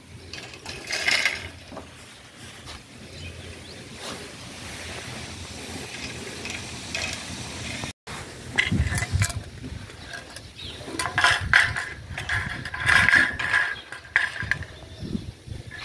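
Wire barbecue grill grates rattling and clinking against each other and the tile floor as they are handled, in irregular clusters that grow busier in the second half.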